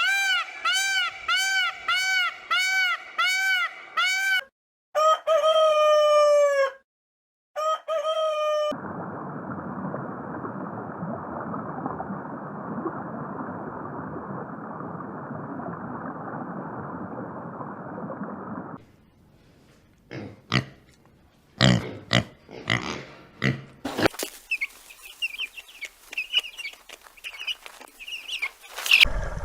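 Bird calls: a fast run of about nine short arched calls, then two longer calls that fall in pitch. After that comes a long stretch of steady rushing noise, then scattered knocks and faint high chirps.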